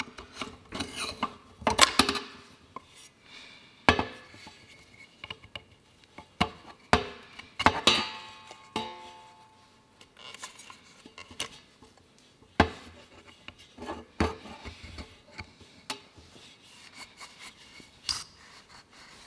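A small pick tool scraping and clicking against a plastic oil filter housing cap as the old rubber O-ring seals are pried off. Irregular light clicks and knocks run throughout, as the seals drop onto a steel drain funnel's grate, with one ringing metal knock about eight seconds in.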